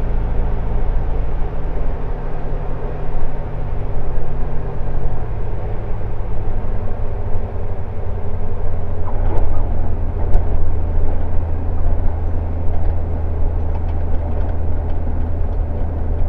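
Single-engine propeller airplane's engine throttled back to idle for landing, heard inside the cockpit as a steady low drone with airflow noise; the low hum shifts about five seconds in, and a couple of sharp clicks come around nine and ten seconds in.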